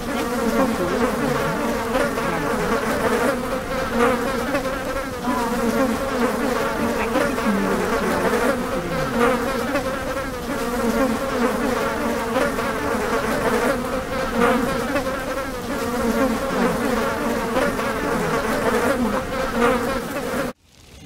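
Dense, steady buzzing of a swarm of insects, many wings droning together at once; it stops suddenly near the end.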